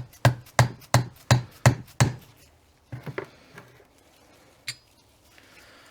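A run of sharp hammer taps, about three a second for two seconds, then a few lighter knocks, while working the halves of a limited-slip differential case apart.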